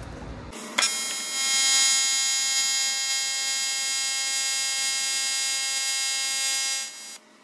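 AC TIG welding arc buzzing steadily as a bead is laid along a hairline crack in an aluminium boat hull. The arc strikes with a sharp click about a second in and cuts off shortly before the end.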